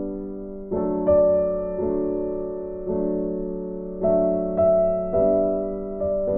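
Slow background music of soft struck chords, a new chord about once a second, each fading before the next.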